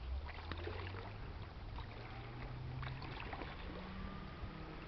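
Low, steady engine drone of the 1943-built lake freighter Mississagi as she passes on the river, with a few faint clicks over it.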